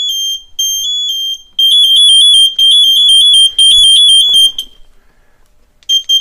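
High-pitched electronic alarm beeping in an alternating two-tone pattern. About a second and a half in it turns into a faster, louder warble, which cuts off suddenly near the fifth second. Two short beeps follow near the end.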